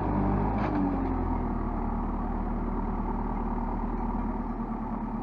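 JCB 3CX backhoe loader's diesel engine running steadily under load as the front bucket scoops and lifts a load of sheep manure; a higher note in the engine sound slides down and fades about a second in.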